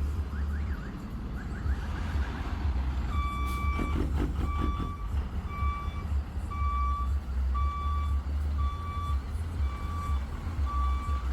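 Blue Bird bus's engine running with a steady low rumble, and from about three seconds in its reversing alarm beeping about once a second as it backs up.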